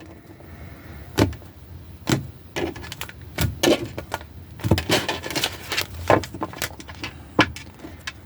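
Tarot cards being handled and laid out. There are irregular sharp snaps and taps of the cards, with a brief rustle of shuffling about five seconds in.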